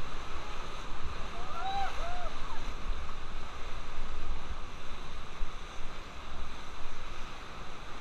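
White-water river rapids rushing and splashing around an inflatable raft, with a gusty low rumble of wind on the microphone. A brief shouted call rings out about two seconds in.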